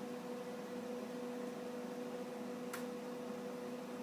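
Steady electrical hum at two pitches, one an octave above the other, with a single faint click about two and a half seconds in.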